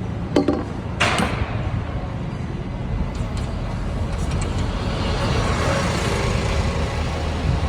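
City street traffic: a steady low engine rumble, with two sharp knocks about half a second and a second in, and the noise of a vehicle passing, swelling through the middle and later part.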